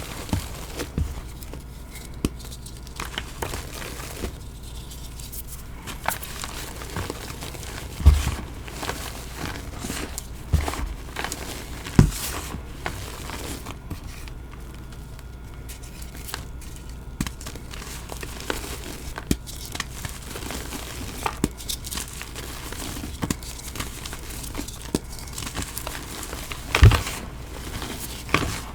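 Soft, dusty re-formed blocks of Bon Ami powder being crushed and crumbled by hand, a steady crumbly crackle with many small cracks. A few sharper, louder knocks stand out, about eight, twelve and twenty-seven seconds in.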